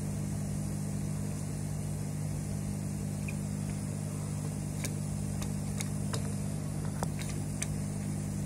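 A steady low hum, with a few faint sharp clicks in the second half as multimeter test probes are moved over the power supply circuit board.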